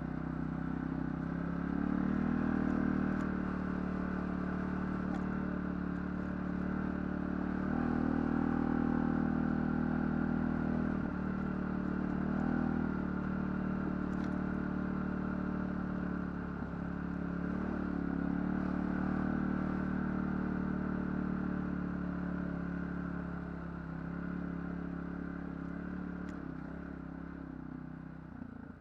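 ATV engine running along a trail, swelling and easing off every few seconds as the throttle changes, with a few light knocks and rattles. It fades near the end.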